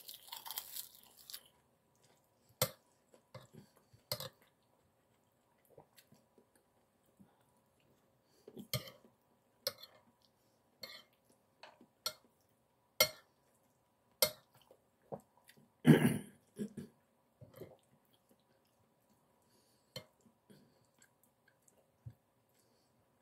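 Mouth chewing a crisp piece of olive-oil-baked seaweed (gim), then a metal spoon clinking sharply against a plate every second or so as curry and rice are scooped and eaten. About two-thirds through comes one louder, longer mouth sound, low in pitch.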